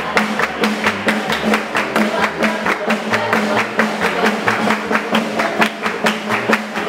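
Live small swing band playing an up-tempo tune, with a double bass moving note to note underneath and a crisp, even pulse of sharp strokes about four to five a second.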